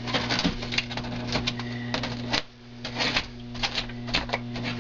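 Extruded polystyrene foam being stabbed and torn out in chunks, giving irregular crackling snaps and squeaks, over a steady low hum.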